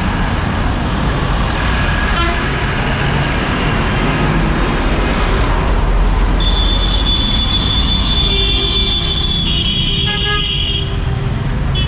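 Busy street traffic: engines running with a steady hum of road noise. From about halfway a long, high-pitched vehicle horn is held for a few seconds, and a second horn with a fuller, lower tone honks near the end.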